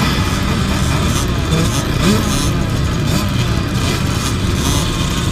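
Several dirt bike engines running at once, revving up and down so that their pitches rise and fall over one another.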